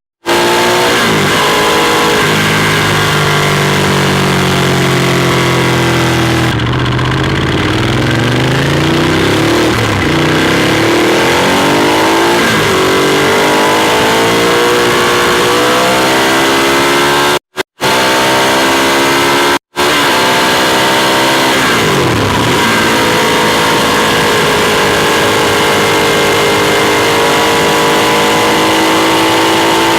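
Ducati Monster 821's Testastretta V-twin engine heard on board while riding, its pitch climbing and falling again and again as it accelerates, shifts and slows. The sound drops out for a split second three times, at the start and twice about two-thirds of the way through.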